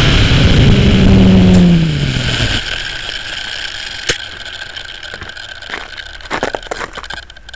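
Blade 130X electric RC helicopter's motor and rotor winding down after landing, the pitch falling over about two seconds before the sound drops away. A fainter steady high tone stays, with a few sharp clicks later on.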